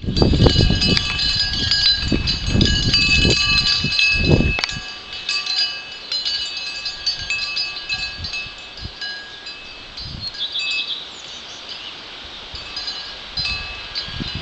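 Wind chimes ringing in a breeze, many overlapping metallic tones. Gusts of wind buffet the microphone for the first four seconds or so, and again briefly later.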